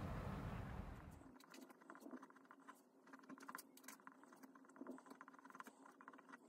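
A low outdoor rumble cuts off about a second in. Then a pen scratches and taps on paper as it writes, in quick small strokes.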